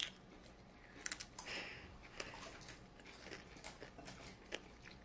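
Faint chewing and crunching of a mouthful of Frito corn chips with chili and cheese, with a few short sharp clicks.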